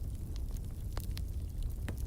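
Fire burning in a fireplace: a steady low rumble of the flames with scattered sharp crackles and pops, about three a second.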